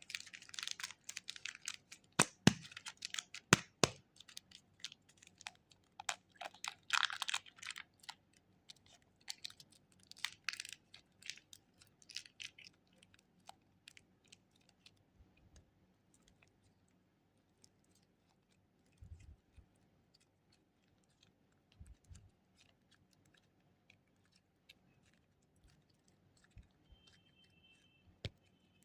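Plastic wrappers of super clay packets crinkling and tearing open, with sharp clicks and rustling for the first dozen seconds, then only sparse faint taps and a few soft thumps of handling.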